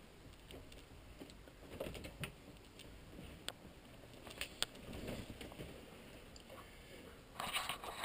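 Quiet handling noise from a handheld camera carried through a small cabin, with scattered faint clicks and taps. Near the end comes louder rubbing and scraping as the camera is swung around and gripped.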